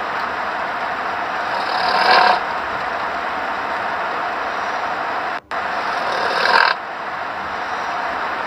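A sleeping person snoring: two noisy snores about four and a half seconds apart, each swelling and then stopping abruptly, over a steady hiss.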